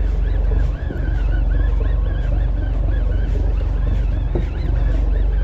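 Fishing boat's engine running steadily, with a higher warbling whine above it that wavers about three times a second.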